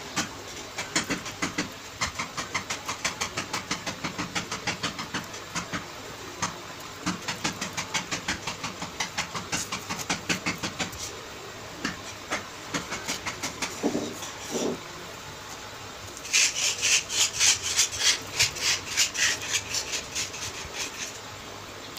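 A bare hand rubbing wet cement mortar onto a tiled wall around a toilet drain pipe, in quick scraping strokes about four a second. The strokes grow louder and harsher for several seconds near the end.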